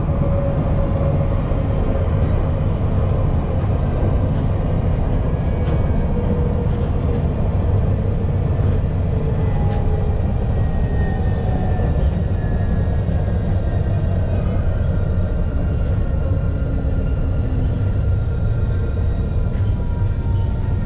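Alstom Citadis low-floor tram running between stops: a steady heavy rumble of wheels on rail. Over it are a few faint motor whines that slowly fall in pitch.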